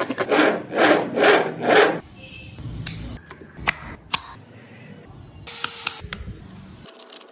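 A wooden model Jeep's coil-spring axle being pressed down by hand: four loud, noisy swells about half a second apart. Then light clicks and taps of wooden parts being handled, with a short hiss near the end.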